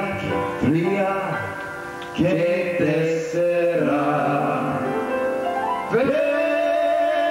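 Two men singing a Greek song into microphones over the stage sound system, with long held notes that swoop up at their start, the last beginning about six seconds in.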